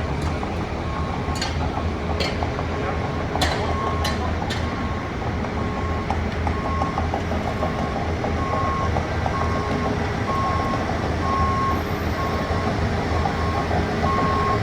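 A construction vehicle's backup alarm beeps in an even, repeating rhythm over the low, steady rumble of a diesel engine. The beeping grows louder toward the end. A few sharp knocks come in the first few seconds.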